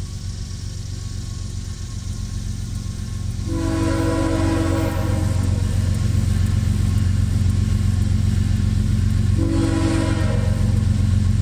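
CSX ES44AH diesel locomotive approaching, its engine running with a steady low hum that grows louder. Its multi-note air horn sounds one long blast about three and a half seconds in and a shorter one near the end, part of the horn signal for the Hayes Road grade crossing.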